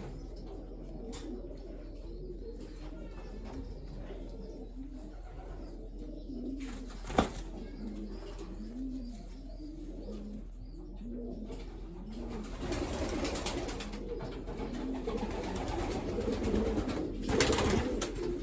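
Racing pigeons cooing in a loft: repeated low coos that rise and fall. There is a single sharp click about seven seconds in, and bursts of rustling noise in the second half.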